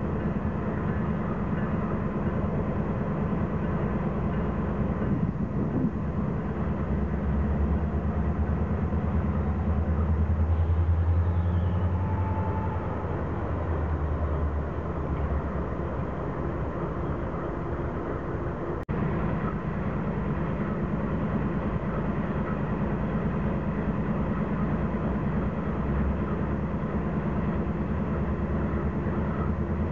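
Norfolk Southern diesel locomotives pulling a freight train slowly past, their engines running with a steady low drone that swells about ten seconds in. A single sharp click comes about 19 seconds in.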